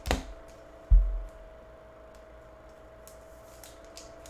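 Trading card and clear plastic top loader being handled as the card is slid into the holder: a dull thump about a second in, then faint scattered ticks and light handling noises, over a faint steady hum.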